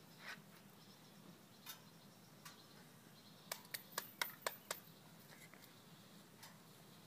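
Hands clapping about seven times in quick succession, a little over a second long, midway; otherwise quiet with a faint low hum and a few soft isolated ticks.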